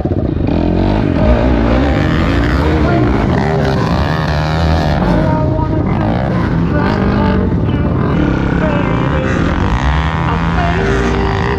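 Quad bike (sport ATV) engines running hard on a dirt trail, the pitch rising and falling again and again as the riders open and close the throttle.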